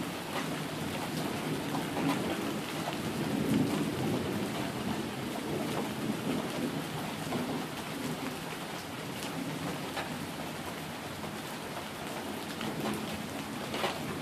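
Thunderstorm: steady rain falling on wet pavement and lawns, with many single drops ticking close by. Low rumbles of thunder swell and fade under the rain, strongest a few seconds in.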